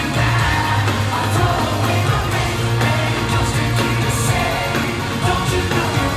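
Pop-rock music with singing over a full band: drums and cymbals, bass and guitars.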